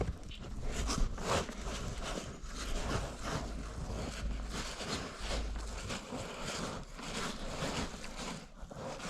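Irregular scuffing steps in snow, about one or two a second, with low gusts of wind rumbling on the microphone.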